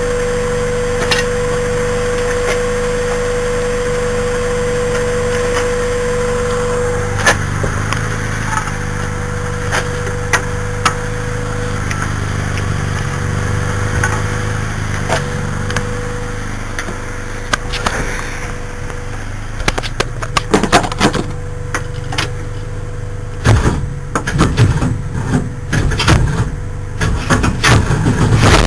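Chevy 307 small-block V8 running, with sharp irregular knocks that come more often and louder in the second half. The knocking comes from a flex plate with no bolts holding it to the torque converter.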